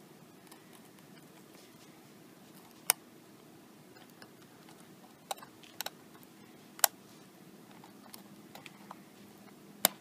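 Sharp, scattered clicks of metal tweezers tapping and catching against the iPad 2's housing and flex cable as they work the cable free, about six in all, over a faint steady hum.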